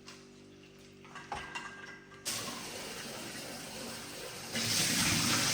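Kitchen tap turned on: water running steadily, then gushing louder near the end, after a few light clicks.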